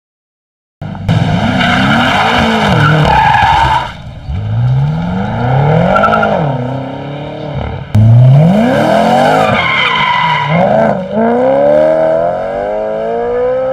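BMW M cars' V8 engines revving hard as they accelerate away, the pitch climbing and then dropping several times as they change gear, with tyre squeal. The sound starts about a second in.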